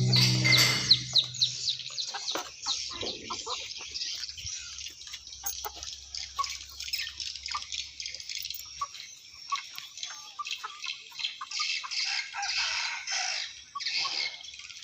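Dense, rapid high-pitched chirping and twittering of swiftlets, many short calls overlapping continuously. A louder, lower call fades out in the first half second.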